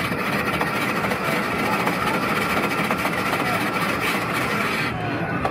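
Electric ice shaver running steadily, its blade grinding a block of ice into fine snow.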